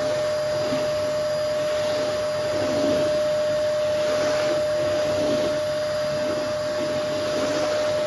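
Canister vacuum cleaner running steadily with a constant whine. Its floor head is pushed back and forth over a wooden floor, giving a swish that rises and falls about once a second.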